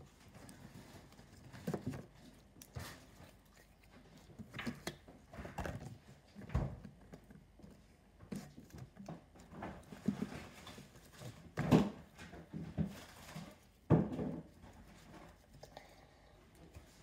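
Yellow slime being kneaded, poked and squeezed by hand, giving irregular soft squelches and clicks, with two louder ones in the last third.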